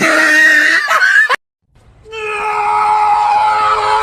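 A short loud scream that cuts off abruptly, then after a brief gap a long steady high scream held for about three seconds.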